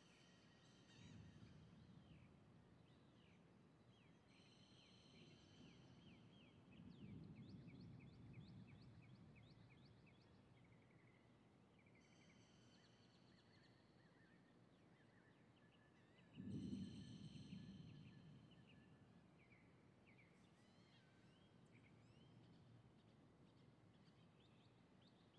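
Faint distant thunder: low rumbles, the loudest starting suddenly about two-thirds of the way in and fading over a couple of seconds. Birds call and chirp over it.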